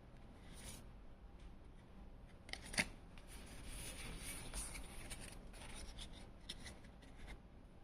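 Handling of a Pokémon card booster pack: the wrapper crinkling and cards rustling against each other, with a few sharp clicks. The loudest click comes about three seconds in.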